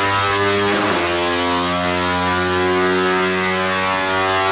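Honda RS150's 150 cc single-cylinder four-stroke engine running at full throttle on a chassis dyno, a loud, steady high-revving drone through the exhaust. There is a brief rough wobble about a second in.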